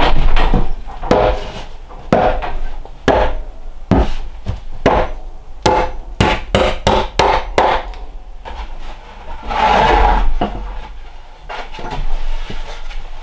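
Claw hammer driving nails into charred pine boards: sharp blows about a second apart, then a quick run of about three a second. Near the end, a scrape of about a second as a new board is pushed up against the wall.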